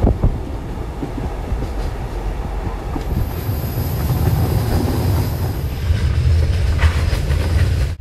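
Passenger train running along the track, heard from inside the carriage: a steady rumble of wheels on rails that grows louder, with a sharp knock at the start, a thin high wheel squeal for a few seconds midway and a few clicks near the end.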